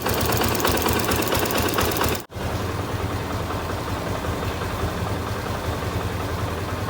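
Yamaha FZ-S V2 motorcycle engine running, heard in two edited clips. The first is louder and busier, like a raised idle or light revving. After a sudden cut about two seconds in, it settles into a steady idle. This is the engine's sound after work on a displaced timing chain, which the rider calls more or less right now.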